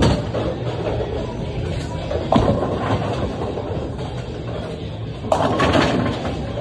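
A bowling ball is released onto a wooden lane a little over two seconds in and rolls with a low rumble. About five seconds in, the pins crash as the ball hits them, and the clatter dies away over about a second.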